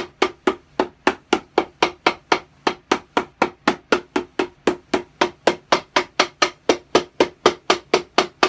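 Cobbler's hammer striking a boot held on a last, steady even blows at about four a second. The blows work the edges of the freshly glued midsole down against the welt, tightening the join and driving out air pockets.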